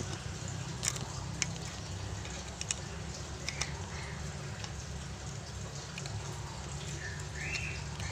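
Light clicks and scrapes of a screwdriver against the metal and rubber seal of a brake booster's centre hole, a few times in the first half, over a steady low hum.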